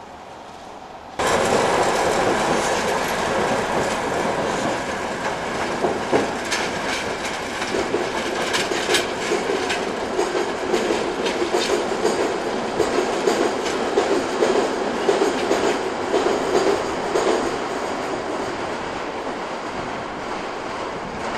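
Class 37 diesel locomotive running over pointwork, a steady engine and wheel rumble with a dense run of wheel clicks over the rail joints and points. The sound starts abruptly about a second in and fades slowly as the locomotive draws away near the end.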